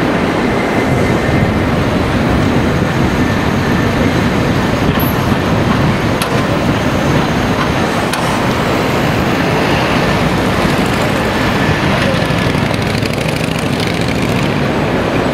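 Steady city road traffic noise mixed with the running of a Hankai Mo 501-type tram along its street track.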